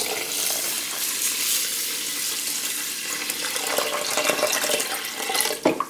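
Water poured from a plastic measuring pitcher onto dry white rice in a rice cooker's inner pot: a steady splashing pour that tails off near the end.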